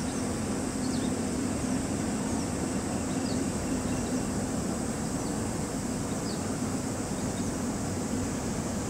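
Steady low drone of a large cargo ship's engines heard across the water as the ship gets under way, with a few faint, short high chirps over it.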